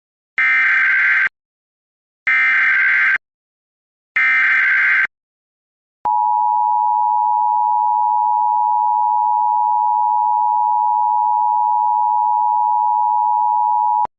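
Emergency Alert System signal: three short screeching SAME data bursts about a second apart, then the steady two-tone attention signal held for about eight seconds. This is the opening of an alert for a 911 telephone outage emergency.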